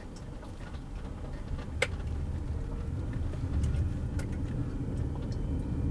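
Car cabin noise while driving: low engine and road rumble that grows steadily louder, with one brief click about two seconds in.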